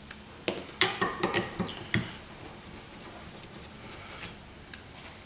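Light metallic clinks and clicks as an Allen wrench and the circulator pump's metal parts are handled, a quick run of sharp clinks in the first two seconds, then quieter.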